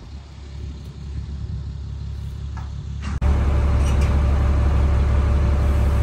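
A low outdoor rumble that slowly grows louder, then a sudden change about three seconds in to steady engine and road rumble heard inside a truck's cab while driving, with a faint steady hum.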